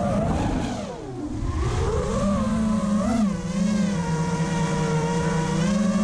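FPV quadcopter's brushless motors and propellers whining, the pitch dropping and fading about a second in as the throttle comes off, then climbing back and holding fairly steady.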